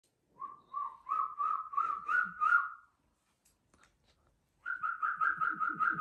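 Asian koel calls: two runs of short whistled notes, about three a second, the pitch creeping higher note by note, with a pause of about two seconds between the runs.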